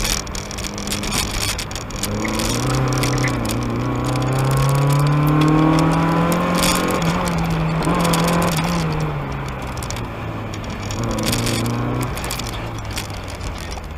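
1992 Mazda Miata's stock 1.6-litre four-cylinder, fitted with headers and a cat-back exhaust, heard from inside the car while it is driven hard. The engine note climbs steadily in pitch for several seconds, falls away as the throttle comes off, and rises again briefly near the end.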